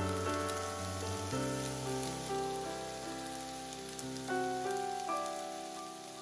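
Background music of held notes that change every second or so, fading toward the end, over the steady sizzle of fried rice frying in a hot pan.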